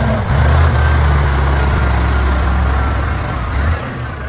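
Truck engine running with a steady low rumble, easing off near the end.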